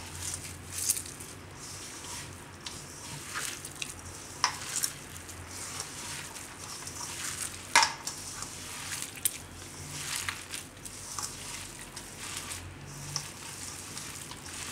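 A hand squeezing and mixing a moist mixture of grated bottle gourd, soaked soya chunks and gram flour in a stainless steel bowl: irregular wet squelching and rustling, with a few sharp clicks against the bowl.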